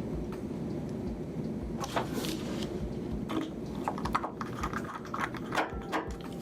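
Light clicks and taps of a small precision screwdriver and tiny screws against an iPhone 5S's internal metal parts while a screw is driven in, a cluster of quick clicks starting about two seconds in, over a low steady background hum.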